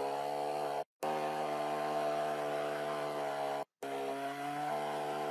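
Two-stroke chainsaw running steadily as it cuts through a sedated black rhino's horn during dehorning. The sound cuts out to silence for a moment twice, about a second in and again near four seconds.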